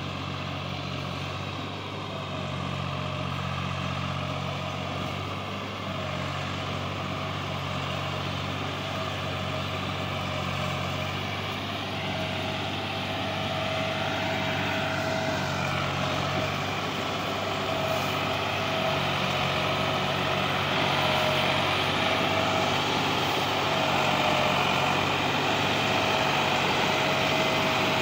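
Massey Ferguson 260 tractor's diesel engine running steadily as it slowly hauls a heavily loaded sugarcane trolley, getting louder as it comes close.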